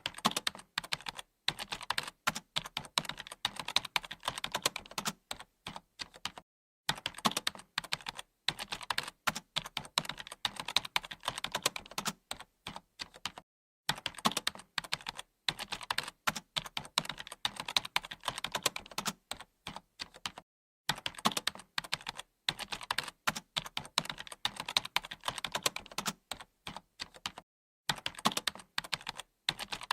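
Typing on a computer keyboard: rapid, continuous keystrokes broken by a few short pauses of about half a second.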